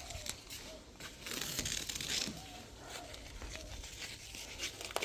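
Faint crinkling and rustling, as of paper or plastic sheet being handled, in a few short patches, with one sharp click near the end.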